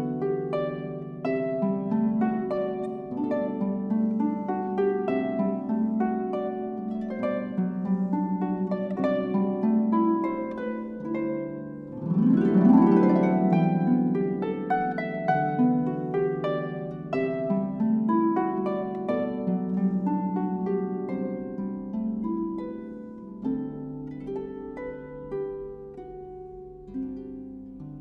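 Concert pedal harp played solo: a dense run of plucked notes and chords, with a sudden loud sweeping swell about halfway through, then growing softer in the last few seconds.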